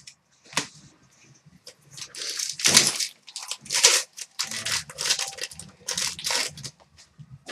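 Foil trading-card pack wrapper being torn open and crinkled: one brief rustle, then from about two seconds in a run of loud ripping and crinkling strokes.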